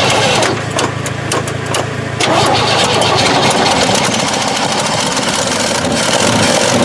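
A 1968 Chevrolet truck engine, unrun for 15 years, is cranked on the starter, primed with gasoline poured down the carburetor. It catches about two seconds in and keeps running, with rapid ticking through the exhaust note.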